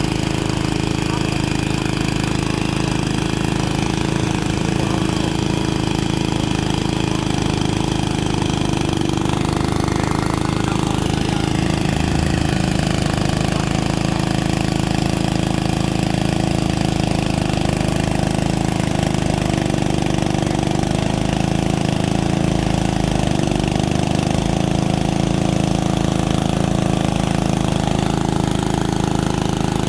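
Engine of a core drilling rig running steadily at a constant speed.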